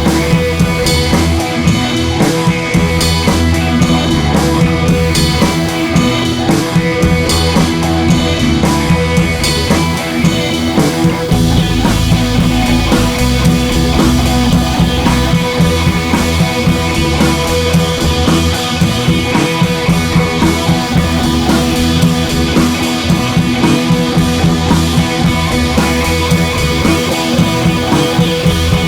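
Background rock music with drums, guitar and bass and a steady beat; the bass gets fuller about eleven seconds in.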